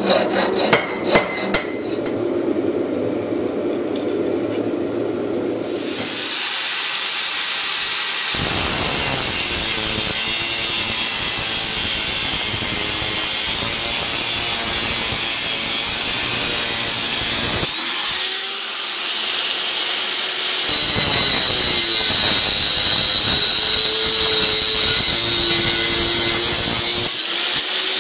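Power grinder working steel: a motor whines up to speed about six seconds in, then a loud, steady hiss of steel being ground, as waste is ground off an O1 knife blank. The grinding breaks off briefly around eighteen seconds and again near the end, with the motor whine rising again each time. Before the grinder starts there is a lower rasping with a few clicks.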